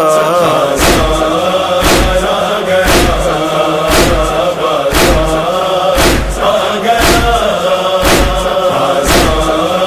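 Wordless chorus of voices chanting a sustained, wavering lament line for a noha, over a heavy thump about once a second, the steady matam beat.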